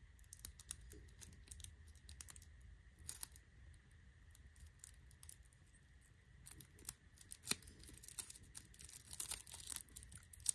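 Thin plastic straw wrapper being crinkled and torn, giving short, sharp crackles that come thicker and louder in the last few seconds.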